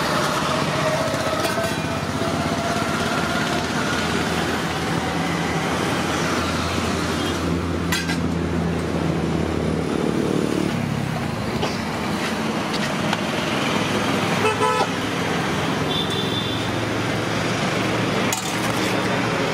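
Steady roadside traffic noise from passing vehicles, with horns honking now and then and a few sharp clinks.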